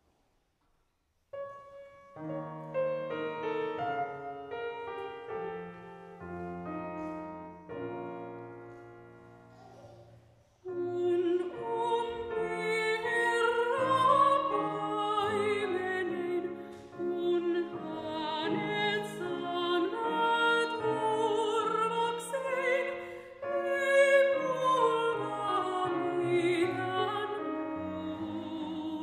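An upright piano plays a slow introduction, and about ten seconds in a soprano enters, singing a classical song with vibrato over the piano accompaniment.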